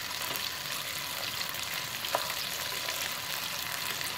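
Boneless chicken leg sizzling steadily as it pan-fries in bubbling teriyaki sauce, with a single sharp click about two seconds in.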